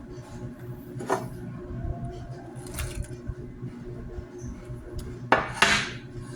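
Food and dishes being handled on a table: a few soft knocks and rustles, then a louder brief rustle or scrape about five seconds in, over a faint steady hum.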